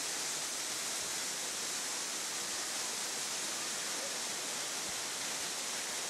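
Waterfall: water cascading over a rock face in a steady, even rush.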